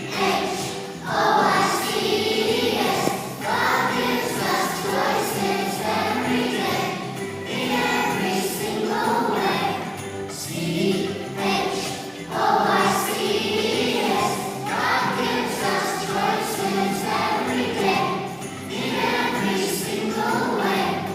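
A group of young children singing a song together in unison, in phrases of a few seconds each.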